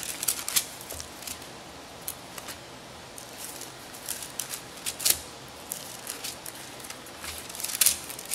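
Thin Bible pages being turned and handled at a lectern, close to its microphone: irregular short, crisp paper rustles, the loudest about halfway through and again near the end.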